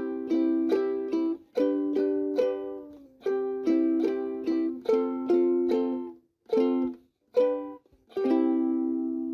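Background music: a plucked string instrument playing a run of chords, each struck sharply and dying away, with a few short breaks in the second half.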